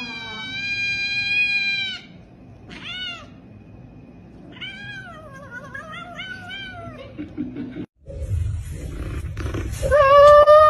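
Kitten yowling and meowing: one long steady call for about two seconds, a short call, then a run of wavering, falling yowls. Another loud call comes near the end.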